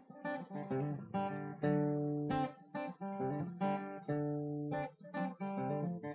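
Background music: acoustic guitar playing plucked chords and notes.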